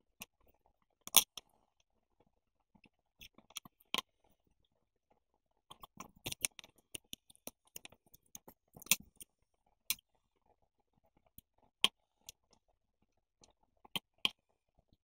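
Scissors snipping coloured craft paper, with crinkles from the paper being handled. The sound is scattered sharp clicks and short crunches, busiest between about six and nine seconds in.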